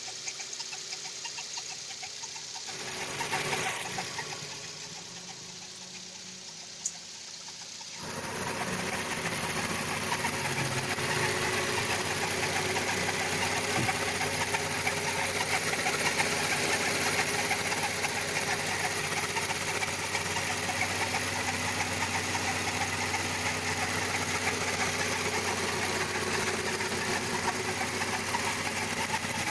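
Volkswagen Gol G6 engine idling with a noise from the timing belt area, which the owner puts down to the belt or a pulley and which began after the timing belt was replaced. The sound gets suddenly louder about eight seconds in and stays steady after that.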